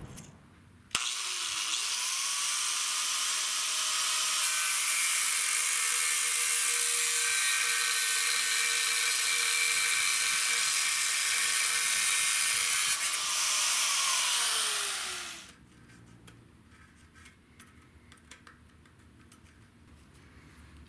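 Angle grinder with a cut-off wheel cutting through the steel scooter frame, cutting out the damaged engine-mount section. Its motor whines up to speed about a second in and runs steadily. About three-quarters of the way through it winds down with a falling whine, followed by faint handling clicks.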